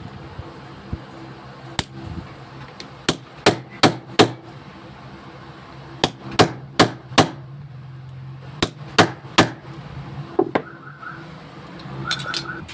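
Hammer blows on the jammed ignition lock of a Hyundai i20, struck in quick runs of three or four taps, as the stuck lock with its broken key blade is knocked loose. A faint steady hum runs underneath, and a few short high tones come near the end.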